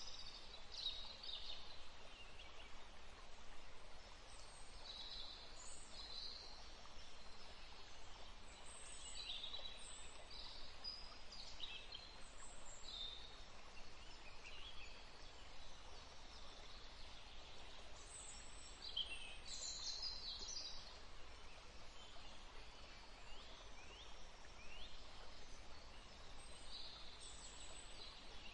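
Small birds chirping: scattered short, high calls and quick falling whistles over a steady faint hiss of outdoor ambience.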